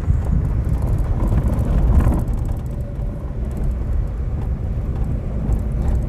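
Car driving along a sandy dirt road: a steady low rumble of engine and tyres.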